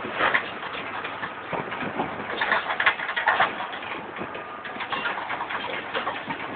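Tractor pulling a seed planter across a field, heard from a vehicle driving alongside: a noisy mechanical rattle and clatter with uneven knocks.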